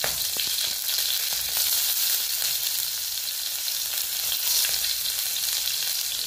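Cumin seeds and whole chillies sizzling steadily in hot oil in a kadhai, a spice tempering (tadka). Chopped garlic goes in partway through.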